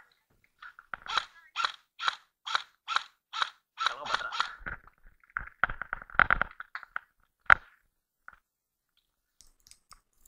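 Footsteps of an airsoft player moving over grass and gravel at about two steps a second, followed by a quicker flurry of scuffs and one sharp knock.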